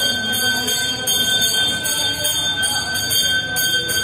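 Temple bells ringing continuously: a steady, high, metallic ring that holds several tones at once.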